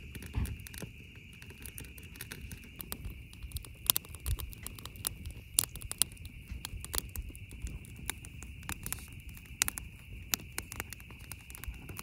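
Wood fire crackling in a metal fire ring, with irregular sharp pops and snaps, over a steady high-pitched drone.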